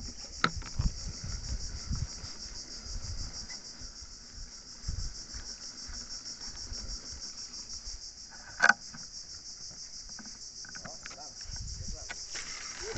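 Steady, high-pitched chorus of insects with a fine pulsing texture, with low rumbles beneath it and one sharp click about two-thirds of the way through.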